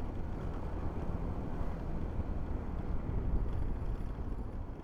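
Steady, low wind rush on a mic clipped under a motorcyclist's chin while riding a Hero Xoom 160 maxi-scooter, with the scooter's engine and road noise running underneath.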